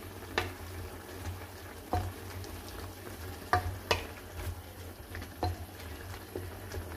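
Wooden spatula stirring strips of carrot, bell pepper and onion in a granite-coated frying pan, knocking and scraping against the pan about six times, over the low sizzle of the vegetables simmering in a little sauce.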